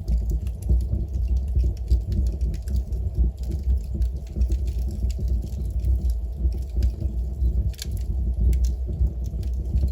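Wood fire burning in a fireplace: constant crackling with scattered sharp pops, a few louder ones near the end, over a steady low rumble.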